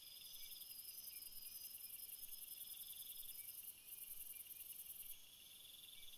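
Faint chorus of crickets: several high-pitched trills overlapping, some starting and stopping, one a fast, even pulsing that breaks off briefly twice.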